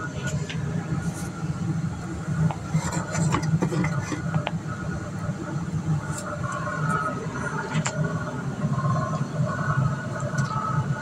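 A steady low mechanical hum with a constant drone, with a few light clicks and knocks, about three to four seconds in and again near eight seconds.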